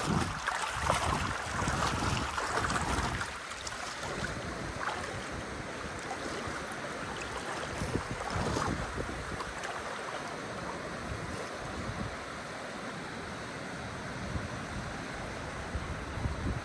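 Wind buffeting the microphone over the steady rush of river water. The gusts are heaviest for the first three seconds or so, then settle to a steadier rush.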